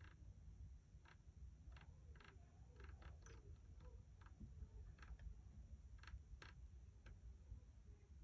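Near silence with about a dozen faint, irregular small clicks over a low hum, from tools and small parts being handled while a soldering joint heats.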